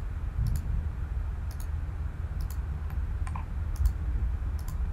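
Computer mouse button clicks, each a quick press-and-release pair, coming roughly once a second, over a steady low hum.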